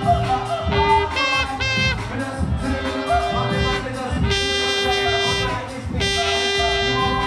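Old-skool UK garage dance music played loud over a club sound system, with a heavy bass line and long held notes.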